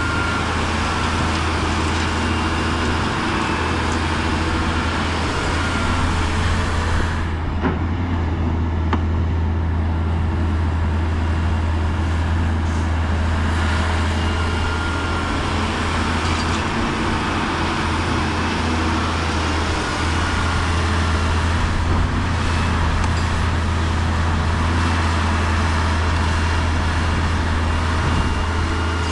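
Heavy diesel earthmoving machinery running steadily under load, a constant deep engine drone with broad mechanical noise over it.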